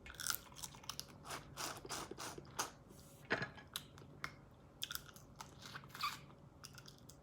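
Close-up chewing and eating sounds: irregular wet smacks and small clicks of a mouth working through food from a seafood boil.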